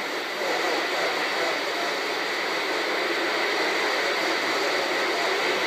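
Steady hiss of CB radio static with no one transmitting.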